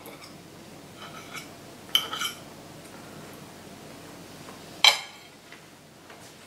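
Metal fork clinking and scraping against a ceramic dinner plate: a few light clinks about a second in, a short cluster around two seconds, and one sharp, loudest clink near five seconds as the fork is laid on the plate.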